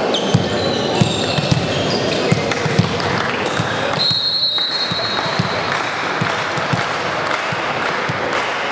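Chatter of the crowd and players echoing in a sports hall, with scattered dull thumps of a ball bouncing on the court floor. About four seconds in, a single short blast of a referee's whistle.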